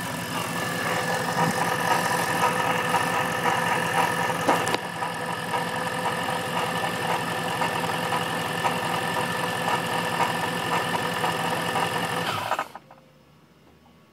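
Car engine with a Paxton Novi 2200 centrifugal supercharger idling steadily with several steady whining tones, then switched off near the end. The running sound stops abruptly, with the brief rattle that the supercharged engine makes on shut-off, whose cause the owner has not yet found.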